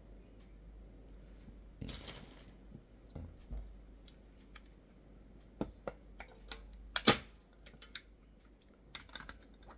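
Miles 2313A staple gun driving a 23 by 13 pin into a piece of wood: one loud sharp crack about seven seconds in. Smaller clicks and handling rustle of the tool come before and after it.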